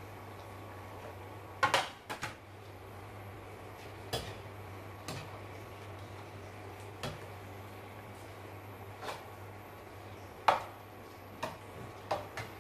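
Metal slotted skimmer clinking and scraping against a nonstick wok while stirring a brothy noodle dish: about ten irregular knocks, the loudest about a second and a half in and again near ten and a half seconds. A steady low hum runs underneath.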